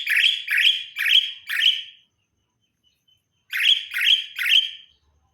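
Javan myna giving a run of five harsh chirping calls, then three more after a pause of about a second and a half.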